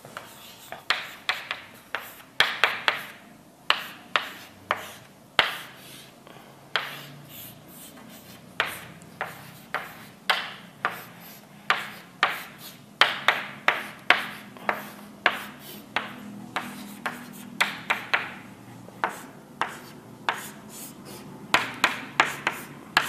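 Handwriting: a writing tool tapping and scratching on a writing surface in irregular short strokes, a few sharp taps each second.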